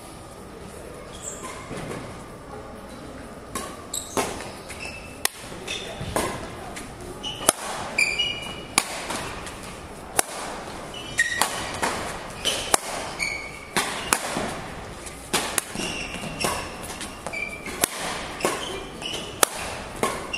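Badminton rally in a hall: rackets striking the shuttlecock with sharp cracks that come quickly from about four seconds in, mixed with short high squeaks of court shoes on the floor.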